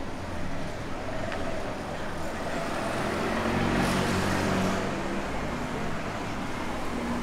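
A car passing on a town street, its engine and tyre noise swelling to a peak about four seconds in and then easing off.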